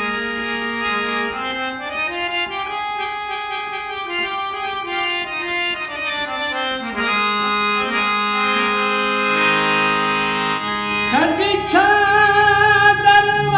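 Instrumental interlude of a song: a reedy, accordion-like melody of held notes stepping up and down, then the singing voice comes back about eleven seconds in.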